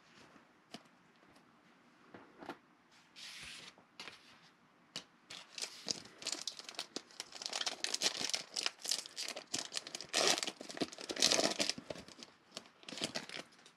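Foil wrapper of a 2020 Panini Mosaic football card pack crinkling in the hands and being torn open, loudest a few seconds before the end. A few light clicks and a short rustle come earlier.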